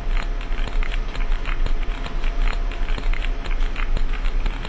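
Hydrophone recording of sperm whale clicks played back: rapid, irregular clicks, several a second, over a steady low hum and background noise.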